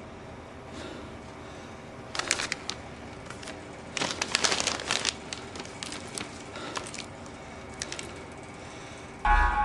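Two short bursts of crinkling handling noise, about two seconds in and again around four to five seconds in, followed by a few small clicks over a quiet room background. Soft chime-like music comes in just before the end.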